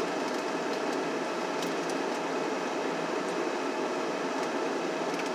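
Steady hum of a running car's heater and engine, heard inside the cabin, with a faint steady tone in it. A few faint clicks of chewing as a sandwich is bitten and eaten.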